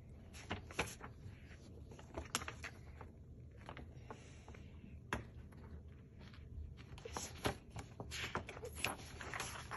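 Faint rustles, taps and clicks of a hardcover picture book being handled and its pages turned, with more rustling in the last few seconds.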